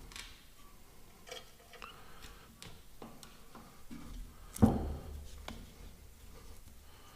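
Metal clicks and light clinks of a steel drive chain and its connecting link being handled and worked into place, with one sharp, louder metal clank about four and a half seconds in.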